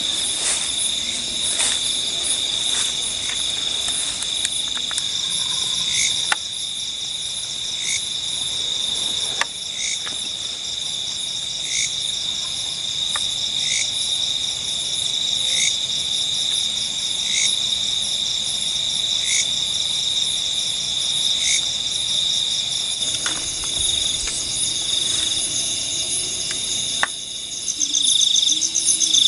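Night chorus of crickets and other insects, a steady high-pitched trill, with a short call repeating about every two seconds.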